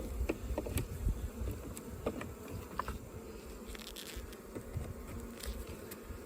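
Honeybees buzzing in a steady hum around an open hive, with a few short, light clicks and knocks scattered through.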